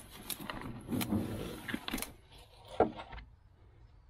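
A cardboard box being slit open with a folding knife and its lid pulled open: scraping and rustling of cardboard with several clicks, a sharp snap a little before three seconds in, then it goes quiet.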